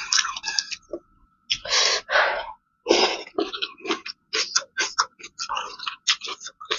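Close-miked eating sounds: wet chewing and lip smacks in quick clicks, with a few longer breathy sounds about two and three seconds in, while spicy noodle soup is being eaten with chopsticks.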